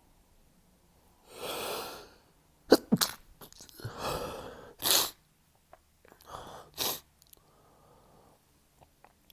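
A man's stifled sneezes in a sneezing fit: a noisy breath in, then a sharp, held-back sneeze, three times in a row. The first sneeze comes as a cluster of several sharp bursts.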